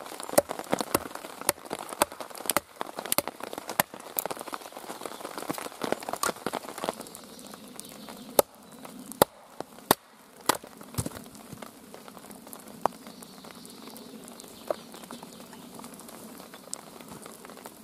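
A Wetterlings bushcraft axe chopping and splitting a log round on a chopping block: a run of sharp knocks, the loudest few single strikes about halfway through, over the steady hiss of falling rain.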